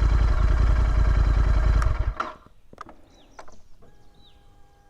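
Royal Enfield Interceptor 650's parallel-twin engine idling with an even pulse, then stopping suddenly about two seconds in. Afterwards it is quiet apart from a few clicks and short, falling bird chirps.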